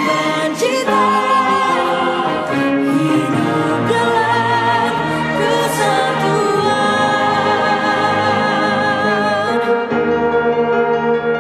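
Music: a female lead voice singing over a choir and orchestral backing, with long held notes that waver in vibrato.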